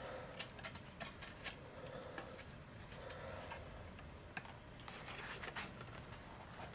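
Faint, scattered small clicks and rubbing as hands handle a glider's V-tail surface and pull a thin control string tight at its horn.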